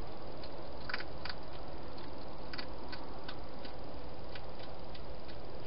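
A hedgehog eating from a bowl inside a plastic feeding box, its chewing heard as a run of crisp, irregular clicks, about two or three a second, over a steady hiss.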